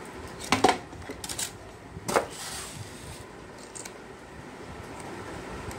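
A few short knocks and clatters of objects being handled on a cluttered workbench, the loudest about half a second and two seconds in, over steady background noise.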